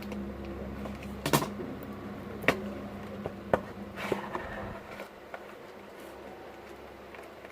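Retail packaging being opened by hand: a few sharp clicks and knocks in the first four seconds, with a brief rustle about four seconds in, over a steady low hum.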